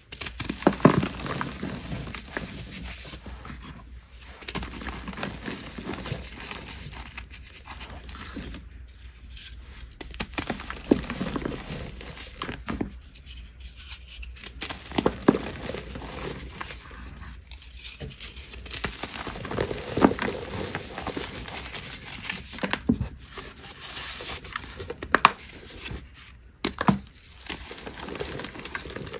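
Moulded gym chalk blocks being squeezed and crushed by hand, crunching and crumbling into powder in irregular bouts, with sharp cracks now and then and short pauses between squeezes.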